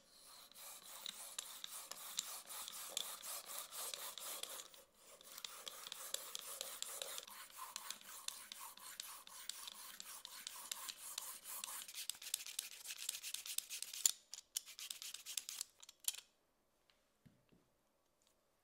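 Handheld vegetable peeler shaving a zucchini into long ribbons: a fast run of crisp scraping strokes, with a short break about five seconds in. The peeling stops a couple of seconds before the end.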